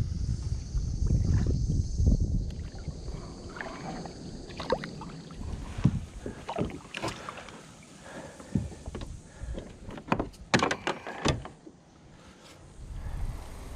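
Short sharp knocks and clicks with water sounds around a fishing kayak, during the fight with a hooked flathead. A low rumble fills the first two seconds or so, and the knocks cluster between about four and twelve seconds in.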